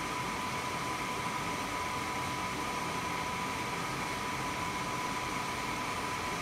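Wood-burning fireplace insert's blower fan running steadily below full speed: an even whoosh of moving air with a thin, constant high whine.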